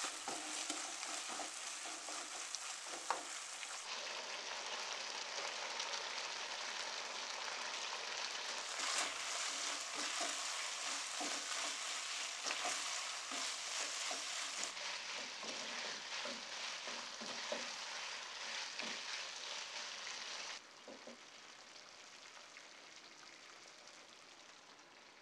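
Chicken and vegetables sizzling in a granite-coated wok while a wooden spatula stirs and scrapes them, with scattered light knocks of the spatula against the pan. About 20 seconds in the sizzle drops to a much quieter hiss.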